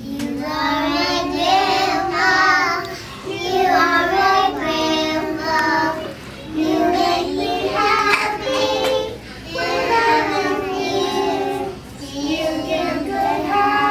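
A group of three-year-old preschool children singing a song together, in short phrases with brief breaks between them.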